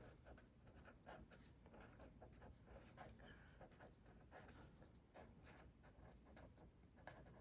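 Faint scratching of handwriting, with short writing strokes following one another unevenly as notes are written out.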